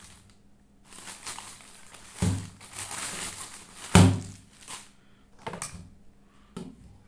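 Clear plastic bag rustling and crinkling as a small plastic hanging-fan motor unit is pulled out of it, with two thuds as the unit knocks down, the second, about four seconds in, the loudest; a few lighter knocks follow.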